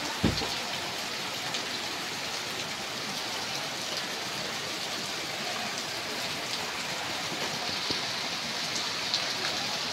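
Heavy rain pouring down steadily, a dense even hiss, with a single thump just after the start.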